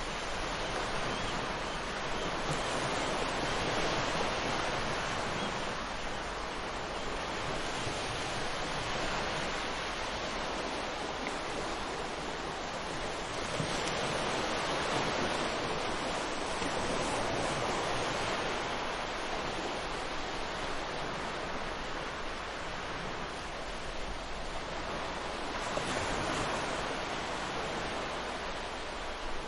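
Ocean waves breaking and washing on a shore, a steady surf noise that swells and eases every few seconds.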